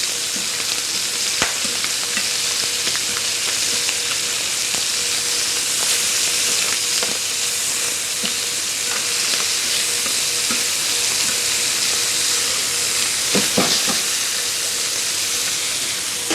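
Chicken pieces sizzling as they brown in hot oil in a pan, a steady frying hiss with scattered light clicks and a few louder knocks near the end.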